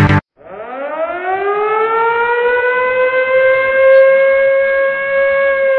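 Air-raid siren sound effect winding up, its wail rising in pitch for about two seconds and then holding a steady tone.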